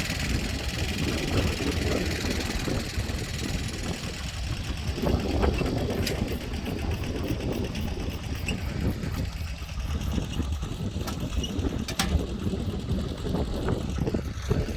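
Tractor engine running steadily, a low rumble with a few light clicks.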